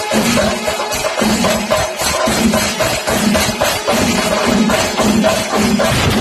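Panchari melam: a massed ensemble of chenda drums beaten with sticks, with ilathalam cymbals and curved kombu horns, playing loud and dense with a steady beat a little under two strokes a second.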